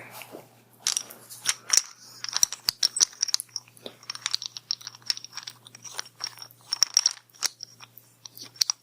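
Close-miked crisp crunching and clicking, irregular, several sharp clicks a second.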